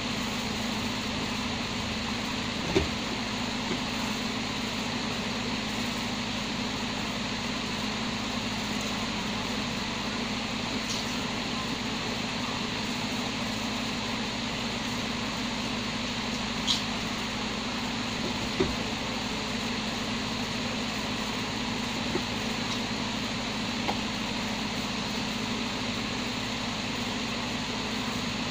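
Steady mechanical hum with a hiss over it, broken by a few brief clicks.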